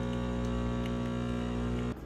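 Background music of steady sustained tones that cuts off abruptly near the end, with a few faint computer keyboard clicks.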